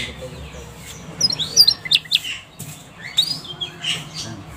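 Domestic canary singing: short phrases of quick chirps and sweeping whistled notes, broken by brief pauses.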